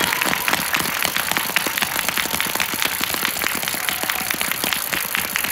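Arena audience applauding: many hands clapping in a steady, dense patter.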